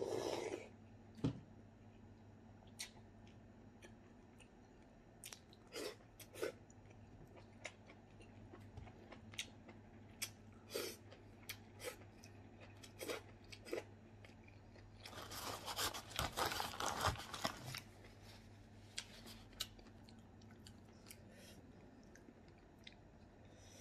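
Close-up eating sounds: a slurp from a coconut-shell bowl at the very start, then scattered lip smacks and chewing clicks, with a dense spell of crunching about two-thirds of the way through. A faint steady low hum lies underneath.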